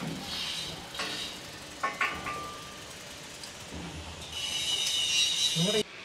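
Bicycle wheels of a sky-cycling ride rolling along a steel rope with a rolling hiss and a couple of clicks. A higher whir with a squealing ring builds a little after halfway and cuts off suddenly just before the end.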